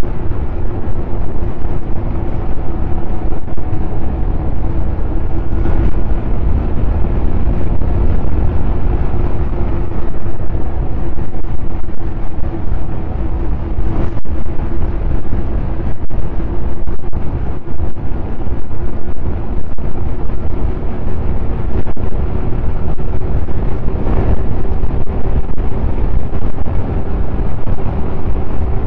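Snowmobile engine running at a steady speed, with loud wind noise on the microphone.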